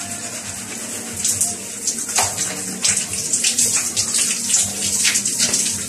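Overhead shower running, its spray hissing steadily with uneven splashes of water from about a second in.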